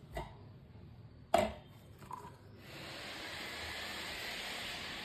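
Kitchen work: a sharp knock, as of a utensil or vessel set down hard, about one and a half seconds in, then a steady hiss that starts about two and a half seconds in and keeps going.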